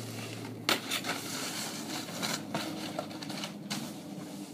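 Snowboard sliding over snow: a rough scraping hiss broken by several sharp knocks, the loudest about a second in.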